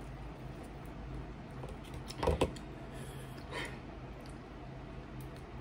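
Close-up mouth sounds of chewing a sauced chicken wing: small wet clicks and lip smacks, with a loud cluster of sharp smacks a bit over two seconds in and a softer one about halfway through, over a low steady room hum.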